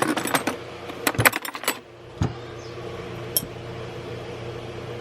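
Steel hand tools clinking and rattling against one another as they are rummaged through in a toolbox. There is a quick flurry of clinks over the first couple of seconds, then one knock and a single click, over a steady low hum.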